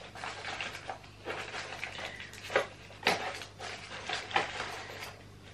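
Small cardboard box being handled and rummaged through by hand: rustling with scattered light clicks and taps of small parts inside.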